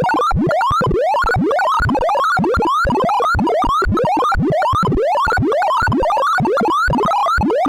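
Computer-generated tones of a sorting-algorithm sonification, with pitch following the values being compared. They form quick rising pitch sweeps that repeat about three times a second as the algorithm passes over the array.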